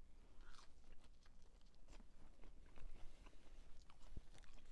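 A person chewing a mouthful of food, with faint scattered wet mouth clicks and smacks.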